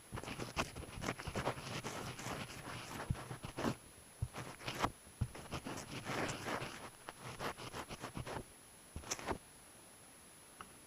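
Irregular rustling, scraping and clicking close to the microphone, like gear or the camera being handled, stopping about nine seconds in.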